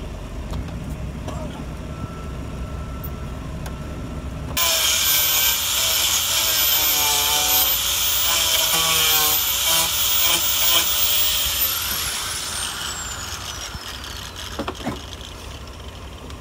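Cordless drill cutting a hole through the SUV's front fender, starting suddenly about four and a half seconds in, its motor whine wavering under load. Around twelve seconds it eases off and a high whine glides down as it spins to a stop.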